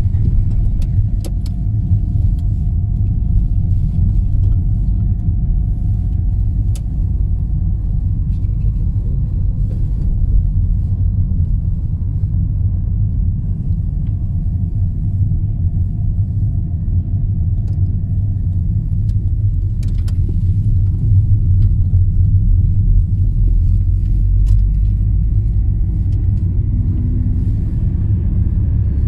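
Car driving, heard from inside the cabin: a steady low rumble of engine and road noise, with a few faint clicks.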